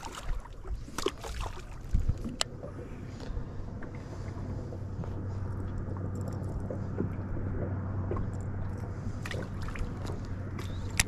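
Electric trolling motor running with a steady low hum, with a few sharp clicks and knocks in the first couple of seconds.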